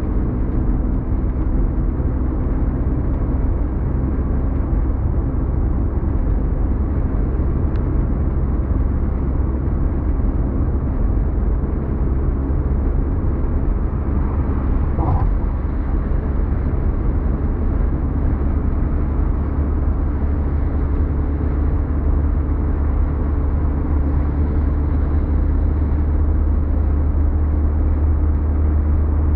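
Steady road noise inside a car's cabin while it cruises at motorway speed: an even low rumble of engine, tyres and wind.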